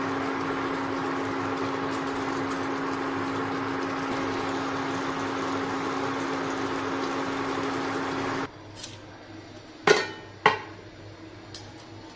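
Steady hum of an induction cooktop running, with a constant low tone, that cuts off about eight and a half seconds in. A few sharp clinks of utensils on a pot and dishes follow, two loud ones about half a second apart near the end.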